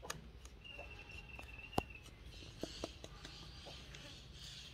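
Quiet outdoor ambience with a thin, high call held for about a second, and a few light, sharp taps, the loudest about two seconds in.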